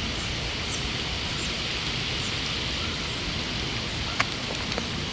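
Steady outdoor background hiss, an even wash of noise with no distinct events apart from one faint click about four seconds in.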